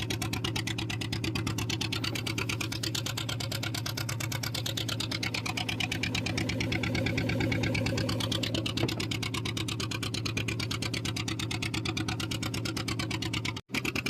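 Fishing boat's engine running steadily under way, with a fast, even knocking beat.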